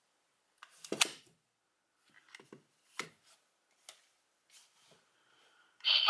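Hard plastic toy parts clicking and knocking as a DX Progrise Key is handled and taken out of its Progrise Key Connector: a sharp click about a second in, then a few lighter taps and clicks. Just before the end a loud electronic sound from the toy starts.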